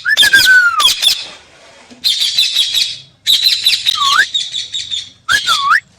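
Parrot calling: loud gliding whistles, one long falling whistle at the start and two that dip and rise near the end, between bursts of rapid, high chattering.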